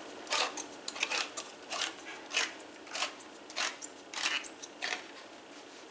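Handheld manual can opener cutting around the lid of a steel tuna can: a short rasping click at each turn of the key, roughly every half second and a bit.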